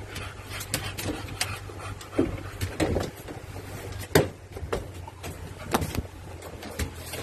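Irregular clicks and knocks of movement on cardboard, over a steady low hum. The loudest knock comes about four seconds in.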